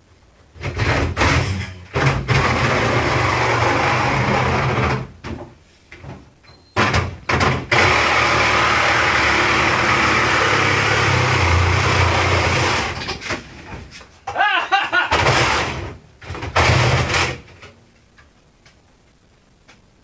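Electric power saw cutting through a refrigerator's sheet-metal and foam cabinet, run in repeated trigger bursts of one to five seconds, with a brief squeal partway through. The cutting stops shortly before the end.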